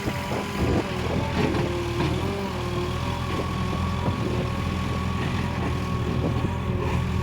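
Tata Hitachi Shinrai PRO backhoe loader's diesel engine running steadily, with a wavering whine above the engine note.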